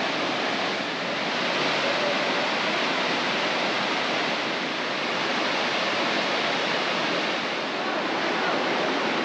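Steady rush of water from a tropical mountain waterfall and its stream, an even, unbroken hiss.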